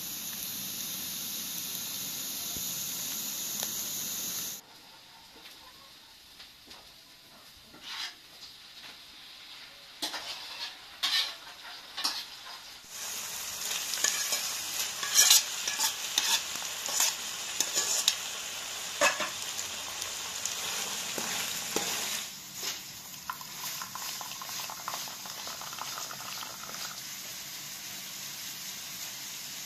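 Chopped onions sizzling in oil in a frying pan, with the sharp clicks and scrapes of a spatula stirring them. About halfway through the sizzling grows louder as raw chicken hearts are tipped into the pan and stirred, then settles to a quieter steady sizzle.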